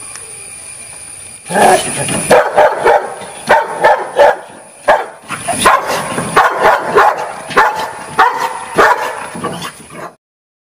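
Rottweiler barking at a kennel's bars: a long run of loud barks, roughly two a second with a few short pauses. It starts after a steady hum about a second and a half in and cuts off suddenly near the end.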